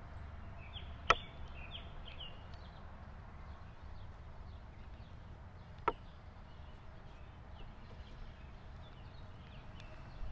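Two sharp clacks from a blitz chess game as moves are played on the board and clock, the louder about a second in and another near six seconds. Small birds chirp high in the background throughout.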